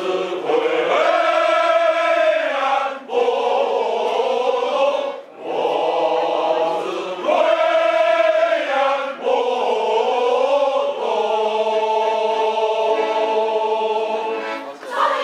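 A large group of men and women singing a song together, led by a conductor, in phrases with short breaths between them and a long held note near the end.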